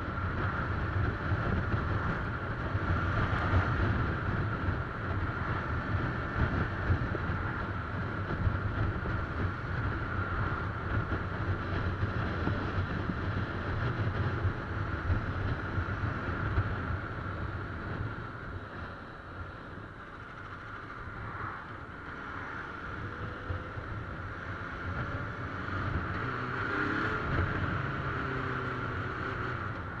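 Suzuki Bandit motorcycle cruising on the open highway: steady engine drone and tyre noise buried in heavy wind buffeting on the rider's camera microphone. It drops a little about two-thirds of the way through, then builds again.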